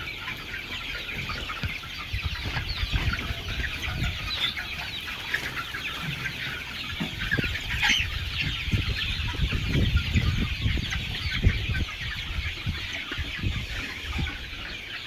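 Chickens clucking, a continuous chatter of many short high calls, with irregular low thuds underneath.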